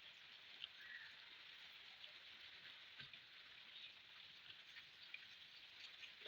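Near silence: a faint steady hiss with a few soft scattered clicks.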